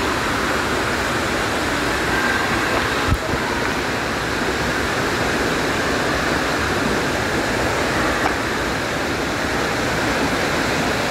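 Steady rush of water falling from a pool's rock-wall waterfall feature and splashing into the pool, with one short click about three seconds in.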